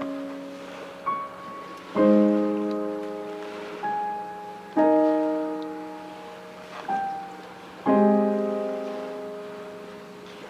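Slow solo piano music: a chord struck about every three seconds and left to fade, with single higher notes between the chords.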